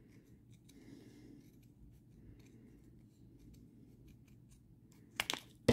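Scissors snipping around the edge of a thin plastic sheet in small, faint cuts, with a few louder sharp clicks about five seconds in.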